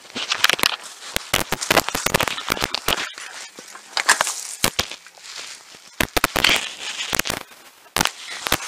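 Pushing through dense undergrowth: leaves and branches rustle and scrape against the camera while twigs crack, giving an irregular run of sharp snaps over a rustling hiss.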